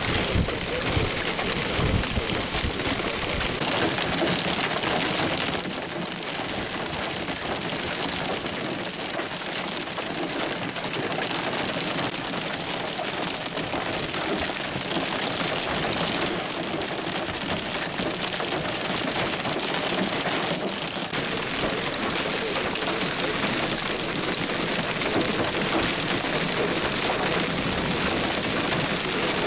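Heavy wind-driven rain mixed with small hail pelting grass, gravel and pavement: a dense, steady hiss that shifts slightly in tone a few times.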